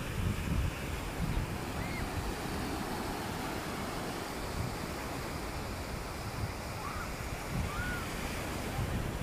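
Surf breaking and washing up a sandy beach, with wind buffeting the microphone in low gusts. A few faint, short chirps sound over it.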